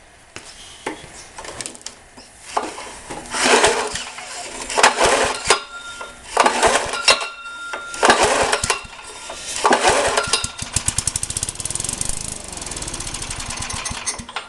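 Tecumseh TVS105 four-stroke mower engine being pull-started, flooded with too much fuel: several hard yanks on the recoil starter, then about ten seconds in it catches and runs with a fast, even beat.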